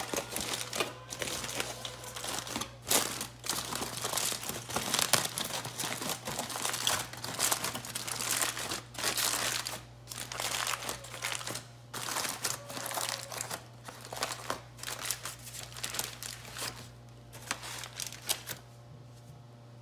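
Aluminium foil being crumpled and crimped by hand into a boat-shaped tray, in irregular crinkling bursts that die away near the end.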